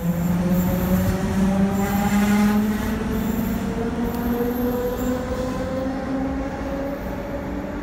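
ÖBB class 4020 electric multiple unit pulling out of an underground station: its traction motors whine in a steady hum that climbs slowly in pitch as the train gathers speed, fading gradually as it moves away.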